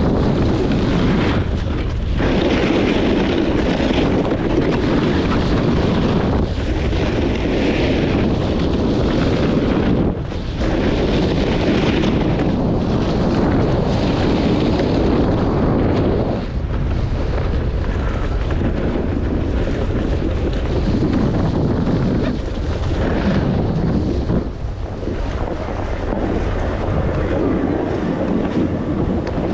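Wind buffeting the microphone during a fast downhill run on snow: a steady loud rush with brief lulls every several seconds.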